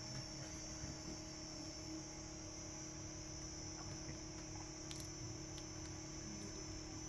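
Quiet room tone with a steady electrical hum, and a few faint ticks about five seconds in.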